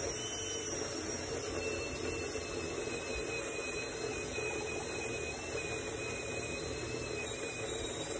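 DeWalt cordless drill running steadily under load, boring a 5/8-inch wood bit into the garage wall. It is a continuous whine with a steady high tone throughout.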